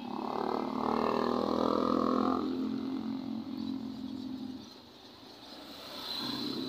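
Motor vehicles passing close by. An engine swells up within the first second, holds, and fades away by about halfway through. A second, smaller swell near the end comes as a motorcycle goes by.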